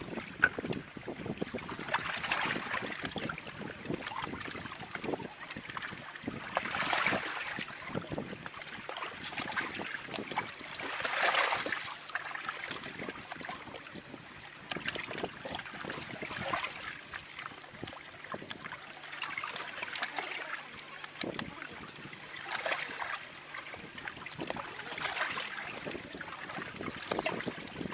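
Wind blowing over open water, with small waves lapping and splashing in swells every few seconds and scattered light clicks; wind buffets the microphone.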